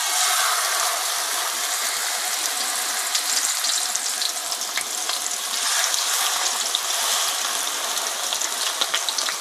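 Marinated kingfish steaks sizzling as they shallow-fry in hot oil in a frying pan: a steady hiss with fine crackling that starts suddenly as the fish goes into the oil.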